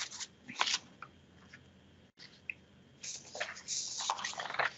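Computer keyboard keys clicking: a few separate taps in the first second, then a quicker run of key presses in the second half.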